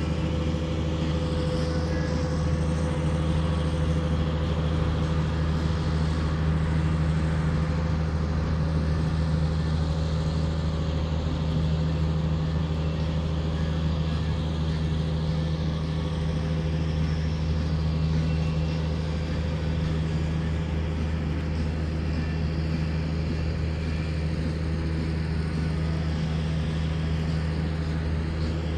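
A loud, steady, low engine drone that does not change throughout.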